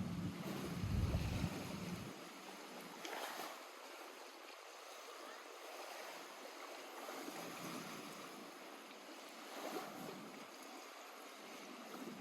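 Lake water lapping in small waves, a steady wash with a few soft splashes, and a low rumble during the first two seconds.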